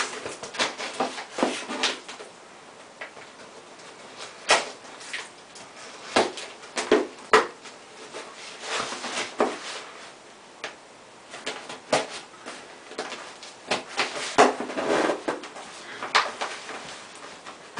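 Knife blade cutting through packing tape on a cardboard box, in irregular scrapes and short rips, with knocks and rustles of the cardboard being handled.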